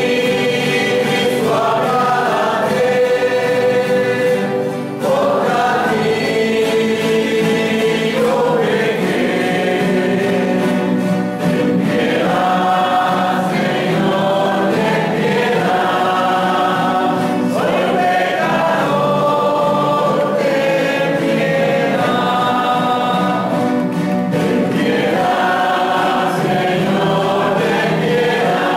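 A small group of voices singing a church hymn in long held phrases, accompanied by acoustic guitars.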